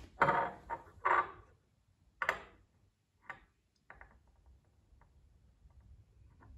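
Glassware being handled while a solution is poured from a glass bottle into a glass measuring cylinder: a few short knocks and rustles in the first second or so, then separate sharp clinks and fainter ticks.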